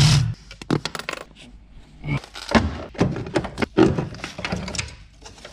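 Hand tools clinking and knocking against metal in irregular short strokes as the brake booster is unbolted from the firewall. A short, loud noisy burst comes at the very start.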